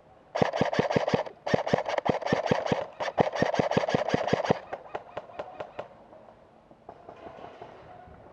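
Airsoft gun firing on full auto in three rapid bursts of about ten shots a second, with sparser single shots trailing off about halfway through.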